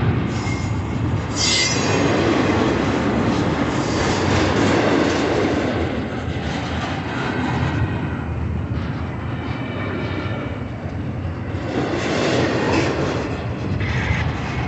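Double-stack intermodal container cars of a freight train rolling past at close range: a steady rumble and rattle of steel wheels on the rails, with a brief high squeal about a second and a half in.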